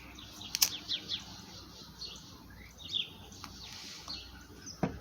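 Small songbirds chirping, many short high chirps that fall in pitch, with a few sharp clicks, the loudest near the end.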